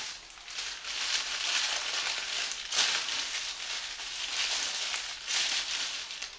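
Wrapping being crumpled and rustled by hand as an item is unpacked: a continuous crinkling with uneven louder peaks.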